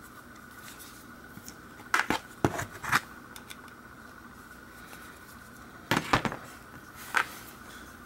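Small metal clicks and scrapes from a screwdriver backing the high and low limit screws out of a vintage Sachs Huret DuoPar Eco rear derailleur: a cluster of clicks about two seconds in, another around six seconds, and a single one near the end.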